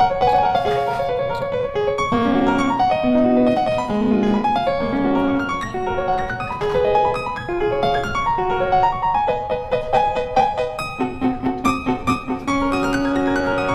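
Background music led by piano, a melody of distinct notes over held lower notes.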